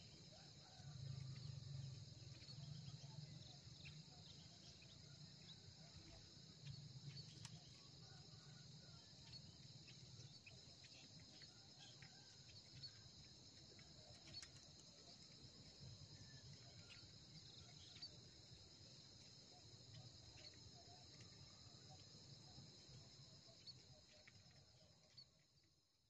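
Faint, steady high-pitched chirring of insects, a continuous trill that fades out near the end.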